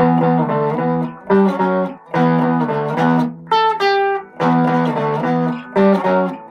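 Ibanez Performer PF-200 electric guitar played clean through a Pignose amp, with no fuzz pedal engaged. Chords are strummed in short phrases, with a brief run of single notes about three and a half seconds in.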